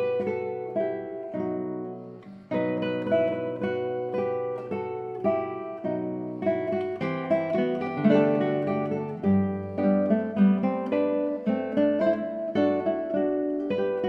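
Background music: an acoustic guitar playing a run of plucked notes, with a brief pause about two and a half seconds in.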